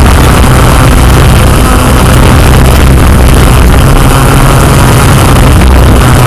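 Yuneec Q500+ quadcopter's motors and propellers running steadily as it hovers, heard loud from on board as a constant low hum with a hiss over it.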